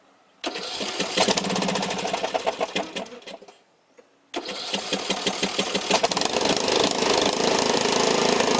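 Riding lawn mower's engine running, starting abruptly about half a second in, dropping out briefly around three and a half seconds and picking up again.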